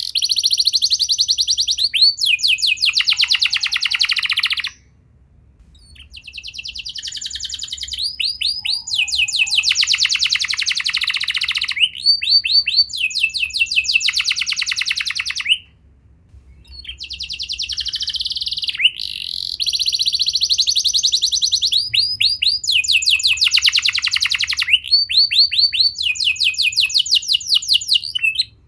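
Domestic canary singing long song phrases of fast trills and rolls, high-pitched and loud, in three bouts with short pauses about five and sixteen seconds in.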